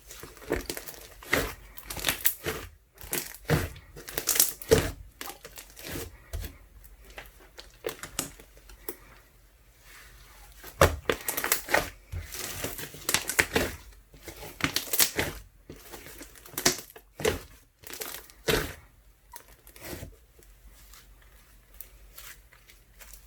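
Hands squishing, stretching and folding ice slime mixed with soothing gel, giving irregular crackling and popping, busiest in the middle and thinning near the end.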